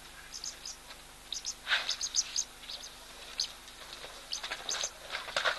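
Small birds chirping: clusters of short, high chirps, with a few louder, lower calls about two seconds in and again near the end.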